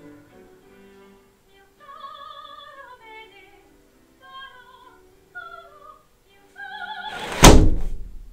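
A high operatic voice singing phrases with a wide vibrato, playing from a television. About seven and a half seconds in, a single loud thud with a brief ringing decay cuts across it.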